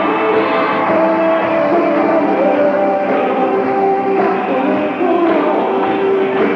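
Rock band playing live in an arena, heard on an audience tape with a dull top end. Held chords and sustained notes step to a new pitch every second or so over a steady wash of band sound.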